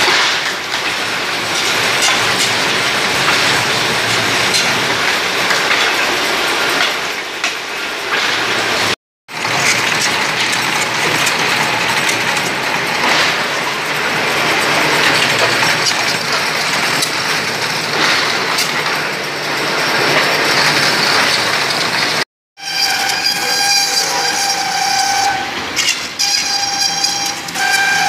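Bamboo-processing machinery running loudly: a bamboo cutting machine chopping poles into short sections, then, after a brief break about nine seconds in, a bamboo stick ridge-cutting machine. After a second break near 22 seconds, a stick polishing machine runs with a steady whine over its noise.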